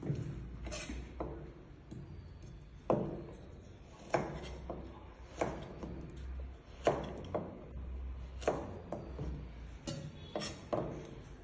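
Chef's knife cutting carrot on a plastic cutting board: a string of sharp knocks as the blade hits the board, uneven, about one or two a second, over a low steady hum.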